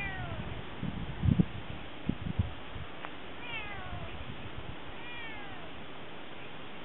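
Domestic cat meowing three times, each meow short and falling in pitch: one right at the start, one about three and a half seconds in and one about five seconds in. A few low thumps come about one and two seconds in.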